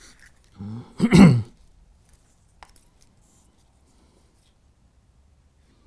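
A man clearing his throat once, about a second in, followed by quiet room tone with a few faint handling ticks.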